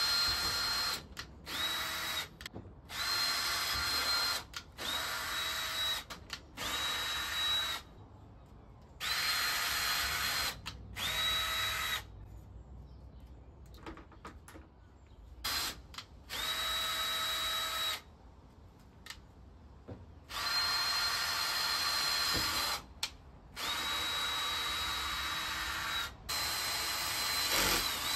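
Ryobi cordless drill drilling pilot holes in PVC pipe, run in about a dozen short bursts of one to three seconds with pauses between, each burst a steady high motor whine.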